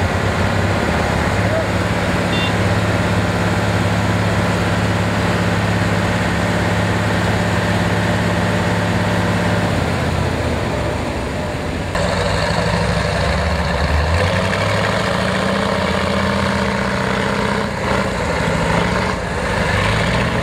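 Off-road vehicle engines running steadily; about twelve seconds in a different, heavier engine takes over, revs up briefly and settles.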